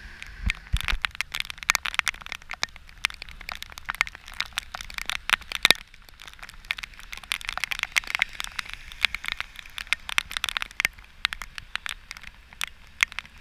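Heavy rain with raindrops hitting close to the microphone, heard as dense, irregular sharp ticks and cracks over a faint hiss.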